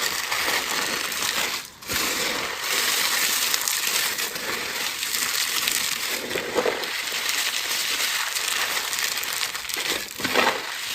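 A crumbly dried block being crushed: dense, continuous crunching and crackling, with a brief pause about two seconds in and a louder crunch near the end.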